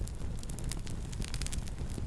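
Campfire crackling: a quick run of small sharp pops and snaps from the burning wood over a steady low rumble of the flames.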